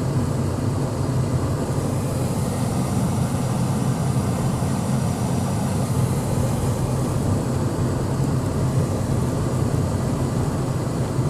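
A vehicle driving along at a steady pace: a constant low engine rumble with road noise over it. The hiss grows a little stronger for a few seconds, about two seconds in.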